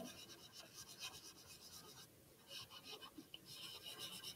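Faint rubbing of a paper towel over chalk pastel on paper, blending the pastel, with a short pause about halfway through.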